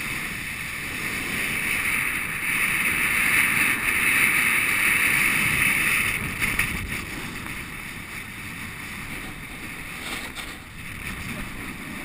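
Edges sliding and scraping over packed snow on a fast downhill run, a steady hiss with wind buffeting the microphone. It is loudest in the middle and eases off after about six seconds.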